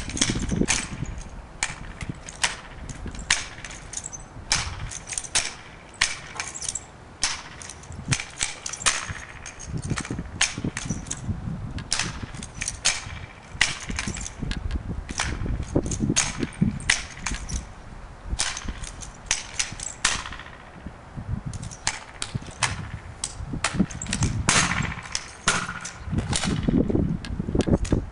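Color guard drill rifle being spun and caught by hand: irregular sharp slaps and clicks of hands on the rifle and its strap hardware, about two a second.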